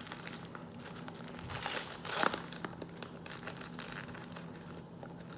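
Faint rustling and crinkling of things being handled on a tabletop, with a louder rustle about two seconds in, over a steady low hum.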